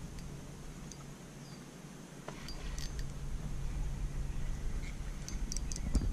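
Spinning reel being cranked as a small hooked smallmouth bass is played in on a bent rod, faint, over a low steady rumble, with a few light ticks near the end.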